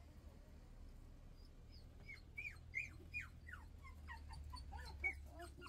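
Small pet dog whining in a quick run of short, high-pitched whimpers that drop in pitch, starting about two seconds in.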